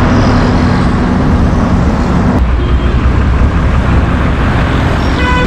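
Diesel engines of Dynapac road rollers running close by, with traffic noise behind them. A little over two seconds in, the sound cuts to a deeper, heavier engine rumble, and a steady pitched tone comes in near the end.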